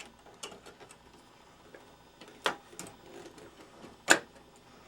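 Small plastic clicks and taps of a memory board being handled into its slot and retaining clips, with two sharper clicks about two and a half seconds and four seconds in.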